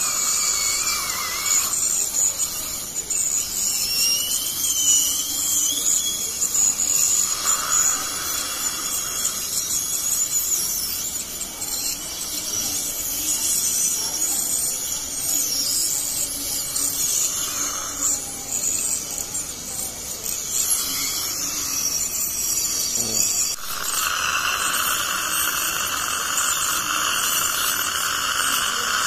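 Ultrasonic dental scaler running against the teeth: a steady high-pitched whine over the hiss of its water spray, with a wavering squeal in the first few seconds. The sound changes abruptly near the end to a stronger, steadier whine.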